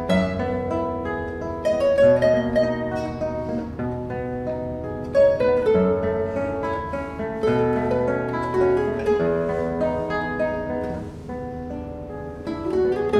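Two classical guitars played fingerstyle as a duet, a plucked melody ringing over a picked accompaniment.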